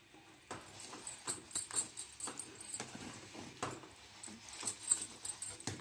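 A spoon stirring and scraping thick cooked rice paste around a cooking pan, making irregular scrapes and knocks.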